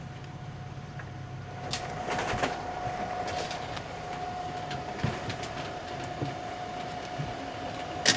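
A moving vehicle heard from inside: steady running and road noise with scattered rattles and clicks. A steady whine-like tone sets in about two seconds in and holds on.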